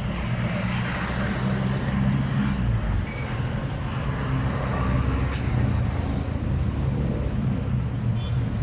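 Engine running steadily with a low rumble.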